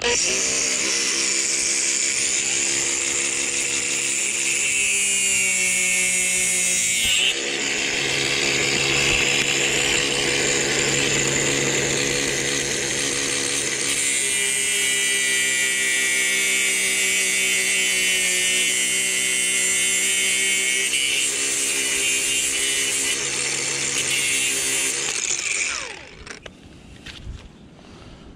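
Cordless angle grinder running and cutting through the end of a drain-cleaning flex shaft, its steel cable and plastic cover. It runs almost without a break, dips briefly about seven seconds in, and stops a couple of seconds before the end.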